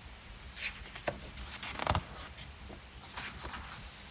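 Crickets chirping: a steady high trill with a quicker chirp pulsing beneath it, and a few soft rustles, the loudest about two seconds in.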